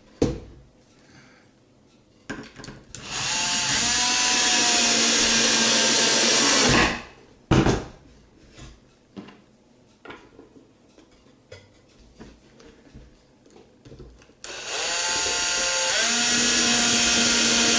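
Power drill driving screws into the wooden roof of a bat box: two runs of about three and a half seconds each, roughly ten seconds apart, each stopping abruptly. Light knocks of wood and screws being handled fall between the runs.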